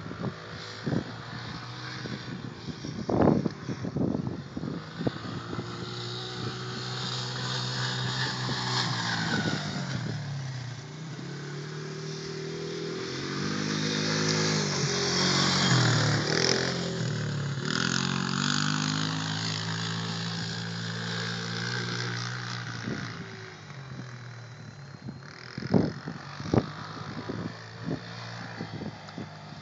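Polaris Sawtooth ATV's single-cylinder engine revving up and down as it rides around, its pitch rising and falling. It grows loudest as it passes close about halfway through, then fades. A few sharp knocks come near the start and again near the end.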